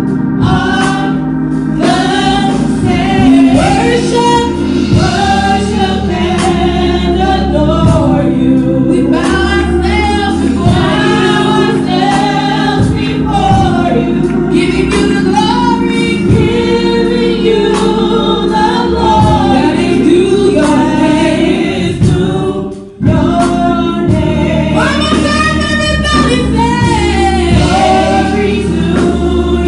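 Gospel choir and lead singer performing a worship song over band accompaniment, with steady held chords underneath. The sound drops out briefly about 23 seconds in.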